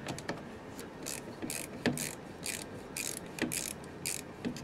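Socket ratchet clicking in short back-and-forth strokes, about two a second, as it loosens the 8mm clamp bolt of a car battery terminal, with a sharper click just under two seconds in.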